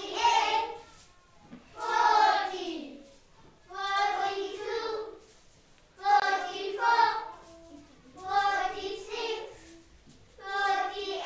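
Young children singing together in short phrases, each about a second long, with a brief pause between phrases.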